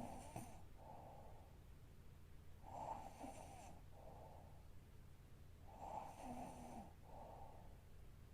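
Woman snoring faintly in her sleep. There are three slow breath cycles, about three seconds apart, each a louder snoring breath followed by a softer one.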